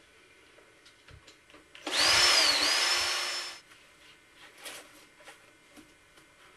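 Cordless drill driving a screw into the wooden box, running once for under two seconds, its motor pitch dipping under load and then recovering. Light clicks and knocks of screws and boards being handled come before and after.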